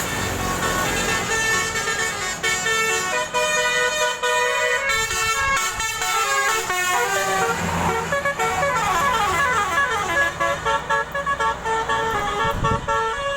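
Basuri multi-tone 'telolet' bus horn playing a tune of quick stepped notes, with a fast run of notes climbing and falling about eight seconds in. A bus engine rumbles low underneath near the end.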